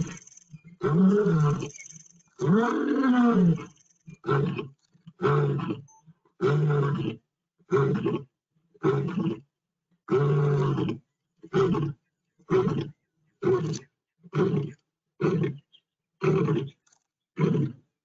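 Male lion roaring: two long, deep moaning roars that rise and fall in pitch, then a run of shorter grunting roars about one a second, growing shorter toward the end.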